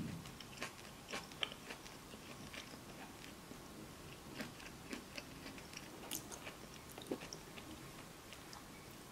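A person chewing stir-fried food close to the microphone: soft, wet clicks and crunches, scattered and irregular, none of them loud.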